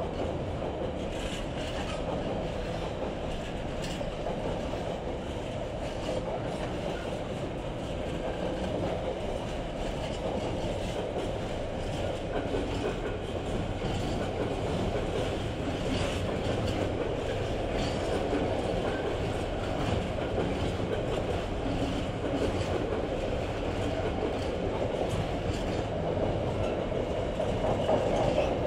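Container freight wagons rolling past at steady speed: a continuous rumble of steel wheels on rail, with scattered light clicks from the wheelsets.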